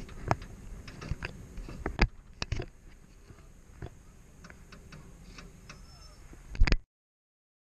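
Kiddie train car rattling along its track with irregular clicks and knocks, busy for the first couple of seconds and then sparse; a louder knock comes about six and a half seconds in, and the sound cuts off abruptly to silence.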